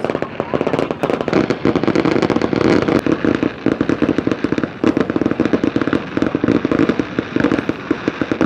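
Fireworks display in a dense barrage: many rapid bangs and crackles a second, without a break.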